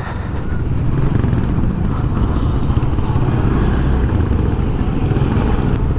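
A motor vehicle's engine running steadily, with road and traffic noise, heard while travelling along the road.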